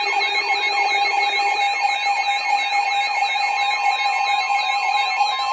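Emergency alert tones from several receivers sounding together: a steady two-tone EAS attention signal, overlaid with a warbling tone and rapidly repeating falling siren sweeps, about four a second. The tones herald a severe thunderstorm warning.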